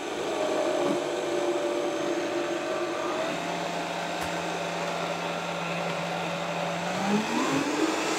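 High-performance blender running steadily while oil is drizzled in through the lid to emulsify a pea and dill purée into a creamy sauce. Its motor note shifts about three seconds in and rises near the end.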